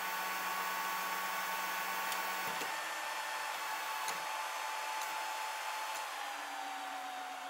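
Delta 3D printer's fans whirring steadily with a high whine, the print just finished. A low hum cuts out with a faint click about two and a half seconds in, and the whine sinks slightly in pitch near the end.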